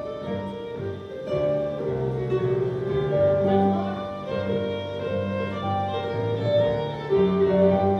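Live instrumental duet of a harp and an electronic keyboard playing a melody in long held notes over sustained bass notes.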